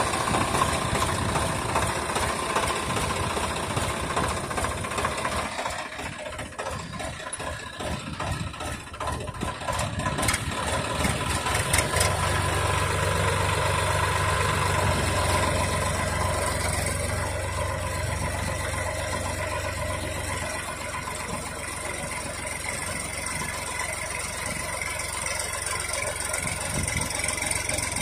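Swaraj 960 FE tractor's three-cylinder diesel engine running steadily while the tractor labours with a rear wheel sunk in wet mud. About twelve seconds in it grows louder and deeper as it takes more load, then eases back around twenty seconds.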